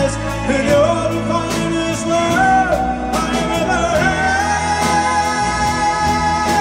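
A live pop-rock band plays with electric guitars, bass, drums and keyboards, and a voice sings long held notes over them.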